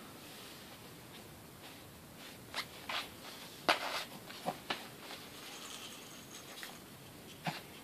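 Short, irregular rustles and scrapes of a baby play gym's fabric toys and mat as a baby kicks and grabs at them, the loudest a little under four seconds in.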